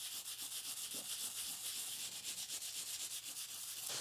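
Small hand brush scrubbing rapidly back and forth over the greasy metal base of an old machine, wet with mineral spirits: an even run of quick, scratchy strokes.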